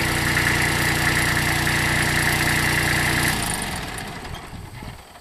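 Kubota B2100 compact tractor's D1005 three-cylinder diesel engine running steadily, its sound cutting off about three seconds in and dying away.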